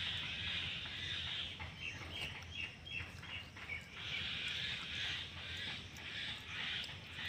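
Outdoor animal sounds: a steady hissing buzz, broken about two seconds in by a quick run of about eight short chirps, then the buzz returns in pulsing stretches.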